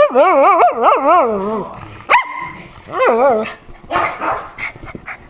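A pug 'talking': a long warbling, wavering howl-like call for about a second and a half, a sharp rising yelp about two seconds in, then a shorter warbling call around three seconds in and a few rougher short sounds near the end. This is the excited, feisty vocalising the breed is known for.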